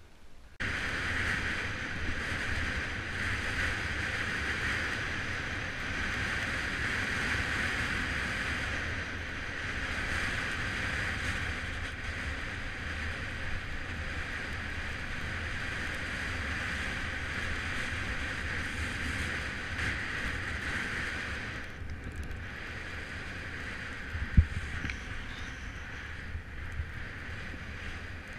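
Wind rushing over an action camera's microphone, with a low tyre rumble from a road bike descending fast on asphalt. The rush eases off a little late on, and a single sharp knock sounds soon after.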